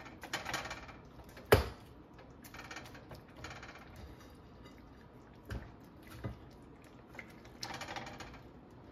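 Metal kitchen tongs clicking and scraping as fried chicken breasts are lifted from a plate and laid into a skillet of cream sauce, with one sharp clack about a second and a half in and a few softer knocks later.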